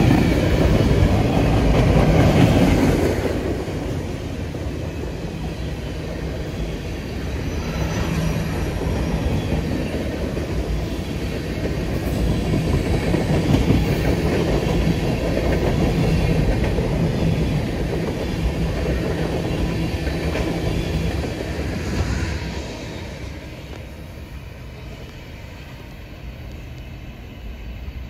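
CN freight train's tank cars rolling past close by, the steady loud rumble of steel wheels on rail. About 22 seconds in it drops to a quieter rumble from the train farther off.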